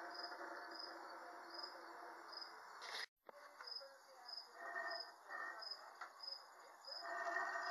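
A cricket chirping in an even beat, about three chirps every two seconds, over steady background noise. The sound cuts out briefly about three seconds in.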